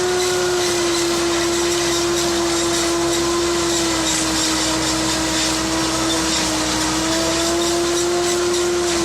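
A Fimaks row-independent forage harvester driven by a Kubota ME 9000 tractor, running steadily. A strong, steady hum wavers slightly in pitch over a loud, even rushing noise.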